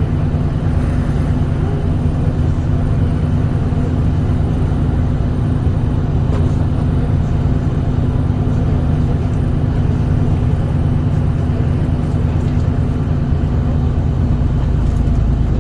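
City bus heard from inside the cabin: steady engine drone and road noise with a constant low hum.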